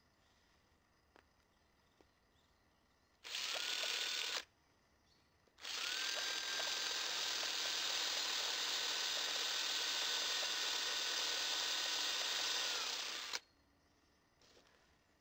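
Electric drill boring into a wooden strip: a short burst of about a second, then a steady run of about eight seconds, the motor's whine rising briefly as it spins up each time and then holding steady.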